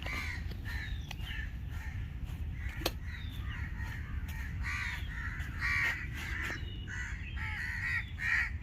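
A group of crows cawing loudly and continuously, many short calls overlapping, growing denser in the second half. One sharp click about three seconds in.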